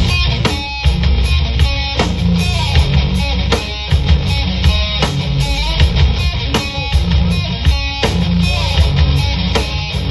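Instrumental rock music: band playing with electric guitar and a steady drum beat, no vocals.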